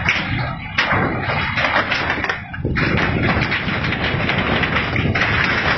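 Ground moving in an earthquake: a loud, continuous rumble crowded with knocks and crashes, with a brief lull about two and a half seconds in.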